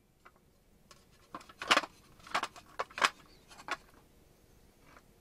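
Cylindrical lithium-ion battery cells clinking against each other and the metal tin as they are handled: about six sharp clicks between one and four seconds in.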